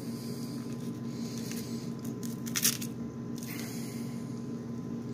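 Sweet onion being pulled apart by hand, its layers and skin squeaking and rustling in a few short bursts, the strongest about two and a half seconds in, over a steady low hum.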